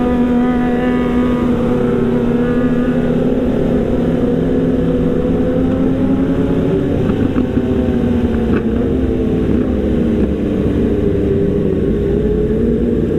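Motorcycle engine running under way, heard from the rider's seat, with other motorcycles riding close by; the engine note drifts slowly as the bike slows down.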